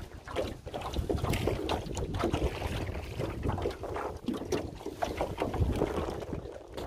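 Water lapping and splashing against a small aluminium rowboat as it is rowed with wooden oars, with wind rumbling on the microphone and irregular small knocks and splashes.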